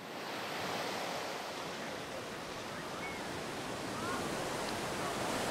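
Steady wash of sea surf on a beach, with a few faint high calls in the distance.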